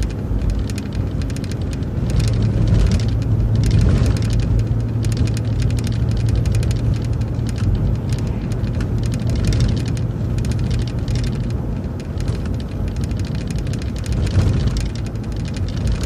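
City bus driving along: a steady low engine drone with road noise and frequent light rattles and clicks.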